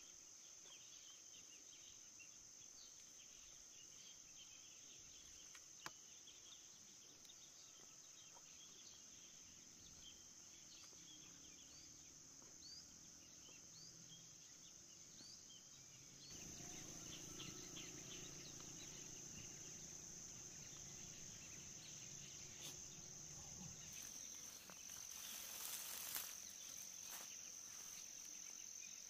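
Insects chirring in a steady, high, unbroken drone, with a few faint short chirps over it in the first half. About halfway through, louder low background noise joins in, with some faint rustling and clicks near the end.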